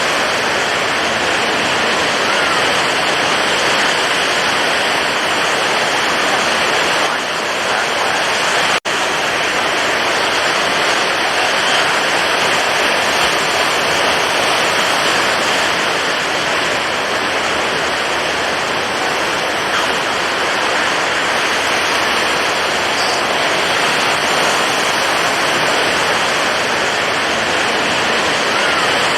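Heavy ocean waves in stormy conditions, a steady, dense wash of surf noise with no distinct single breakers. About nine seconds in the sound cuts out for a split second and comes straight back.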